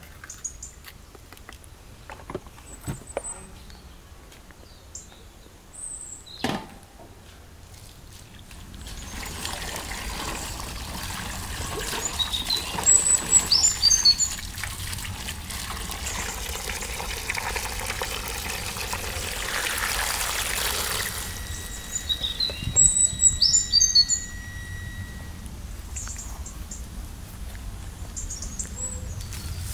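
A few light clicks and taps as bell peppers are cored by hand. Then water runs steadily from an outdoor tap into an enamel basin as the peppers are rinsed, stopping about three quarters of the way through. Birds chirp over the water and after it.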